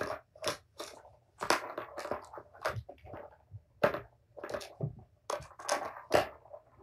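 Plastic balls knocking and rattling around the tiers of a Tower of Tracks cat toy as kittens bat at them: a run of irregular knocks and rattles, about two a second.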